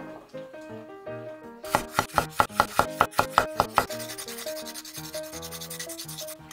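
Fresh ginger being grated: a run of quick rasping strokes, about six a second, for about two seconds, then lighter, faster scraping. Soft instrumental background music plays throughout.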